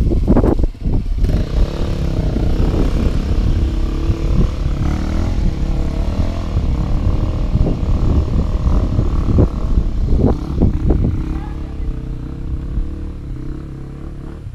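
Off-road motorcycle engine revving hard and unevenly while climbing a slippery rock hill, easing off near the end.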